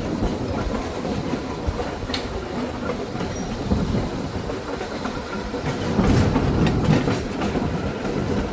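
1926 Wason-built Springfield Electric Railway trolley car No. 16 running along the track, its wheels rumbling on the rails with scattered clicks over the joints. It runs a little louder about six seconds in.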